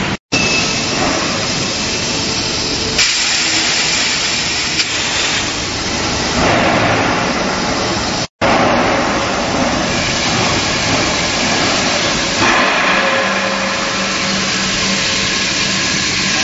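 Steel pipe mill machinery running: steady loud noise with a strong hiss, a few faint steady hums, and two short knocks.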